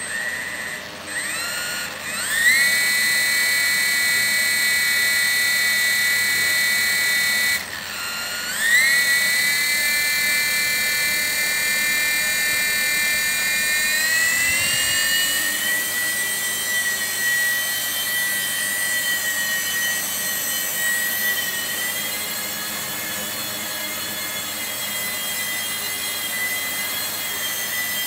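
Blade mSR micro RC helicopter's small brushed electric motor and rotor, a high-pitched whine. It spools up about two seconds in and holds steady, cuts out abruptly about a quarter of the way through, spools up again, then wavers in pitch as the throttle changes in flight.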